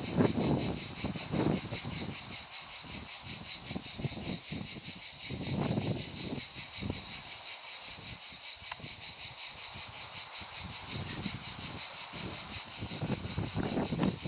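Soft, uneven snuffles and rustles from 20-day-old Petit Basset Griffon Vendéen puppies stirring on a blanket as they wake, under a steady high hiss. The fullest stirrings come about a second and a half in, near the middle and near the end.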